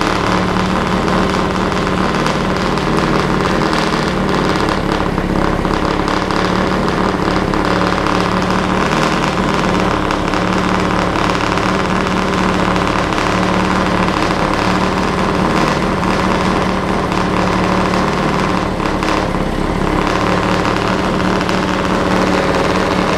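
Classic Mini A-series inline four-cylinder race engine, fed by twin 1.5-inch SU HS4 carburettors, running at a steady speed on an engine test stand.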